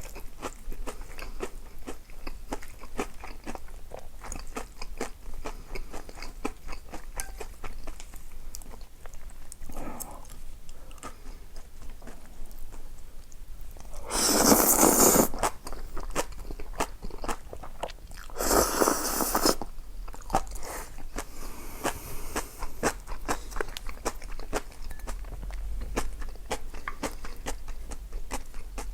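Close-miked eating: crisp food crunching and being chewed, a steady run of small crackly bites. Two louder rushing sounds, each about a second long, come about halfway through.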